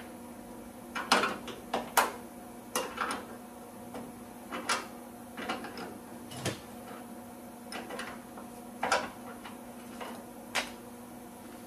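Metal wrench clicking and clinking on a nut as the nut is backed off a stud in a car's fender arch, in a dozen or so irregular sharp clicks, over a faint steady hum.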